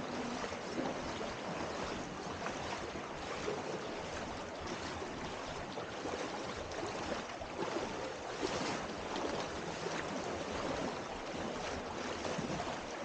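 Shallow river water flowing and splashing steadily, with sloshing as people wade through it.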